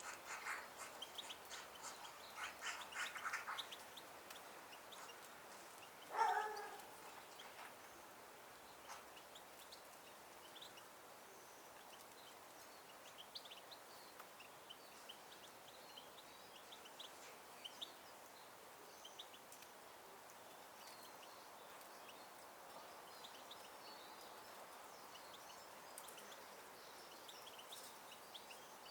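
Small birds chirping and calling, busiest in the first few seconds. One louder, lower call comes about six seconds in, then only faint, scattered chirps.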